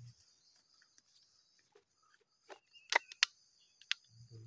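A few sharp clicks or snaps in the second half, the two loudest close together about three seconds in, over a faint steady high-pitched insect buzz.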